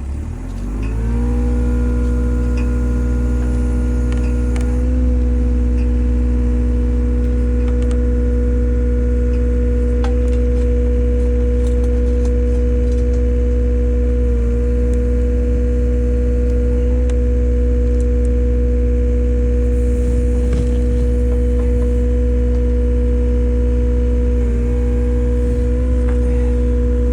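A heavy machine's engine revs up in the first second, then runs steadily at high revs, as when working hydraulics under load.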